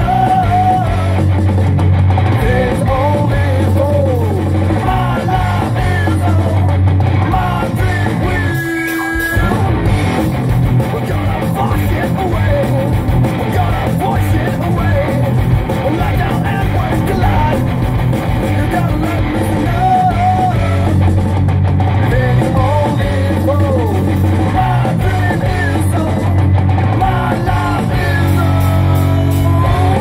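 Rock song with guitar and singing, played by a full band. The band stops for about a second near nine seconds in, leaving one held note, then comes back in.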